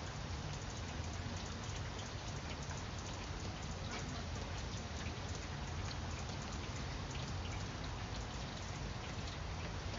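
Steady rain falling on grapevine leaves, with many separate drop ticks over an even hiss and a low steady rumble underneath.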